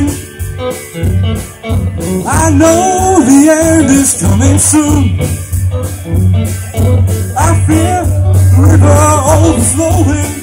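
Live rock band playing through a PA: drum kit, electric guitars and bass guitar, with sung vocal phrases coming in twice over the instruments.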